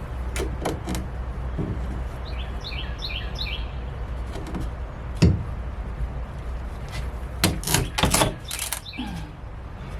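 Scattered knocks and clatter of boards and framing being pulled down by hand, with a louder low thump about five seconds in and a quick cluster of knocks near the end. A bird chirps a short run of quick notes about two to three seconds in.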